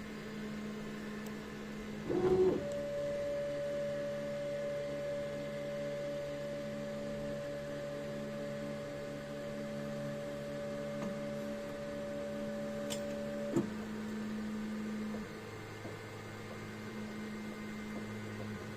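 3D printer's stepper motors whining steadily as the print head moves during the first layer of a print, several steady tones at once. About two thirds of the way in the whine stops with a click and gives way to a lower steady hum.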